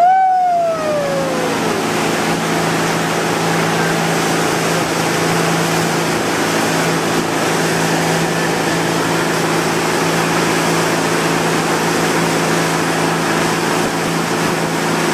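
Towboat engine running steadily under way, over the rush of churning wake water and wind. A short falling shout comes right at the start.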